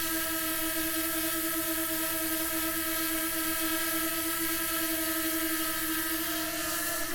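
DJI Mini 2 quadcopter in flight, its four propellers and motors making a steady buzzing whine at a constant pitch.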